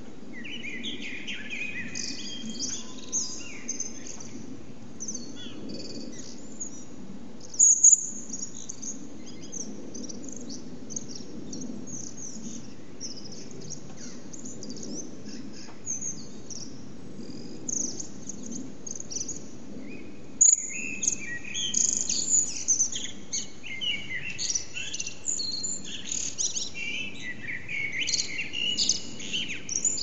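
Common blackbirds singing their dawn song: fluting phrases broken by high twittering notes, over a steady low background hum. There is a brief loud, high chirp about eight seconds in, and the singing grows denser and louder about two-thirds of the way through.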